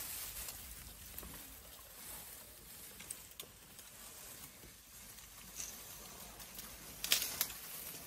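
African elephant feeding on dry grass and twigs: stems rustling and crackling as it pulls and chews them, with a louder burst of crackling about seven seconds in.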